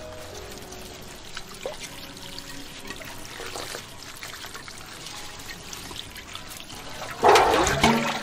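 Tap water running into a steel basin while leafy greens are rinsed and rubbed by hand in it. Near the end a louder gush as the basin is tipped and its water pours off onto the ground.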